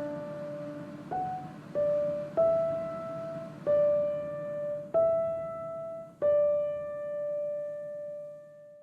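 Background music: a slow solo piano melody, single notes struck one after another and left to ring, the last fading out near the end.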